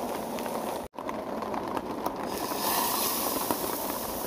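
Food frying in a hot pan: haggis patties, onions and mushrooms sizzling with many small pops, then, after a brief dropout about a second in, a steak frying, its hiss growing louder from about two and a half seconds in.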